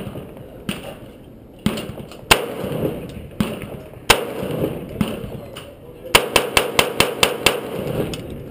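AR-15 rifle firing .223 Remington rounds, each shot a sharp crack with a short echo. Several single shots come a second or so apart, then a rapid string of about nine shots, roughly four a second, near the end.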